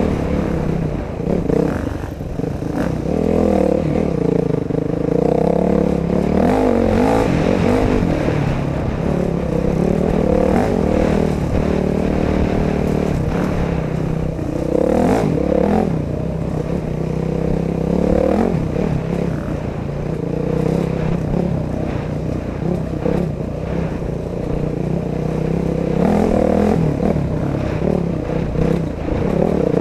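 Dirt bike engine running under load, its revs rising and falling again and again as the rider throttles and shifts. Rattles and knocks from the bike come through as it goes over bumps.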